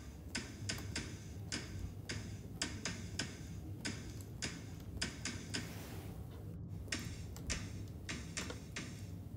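Hand tools working a metal microwave filter: a run of sharp, irregular metallic clicks, about two or three a second, each with a short bright ring.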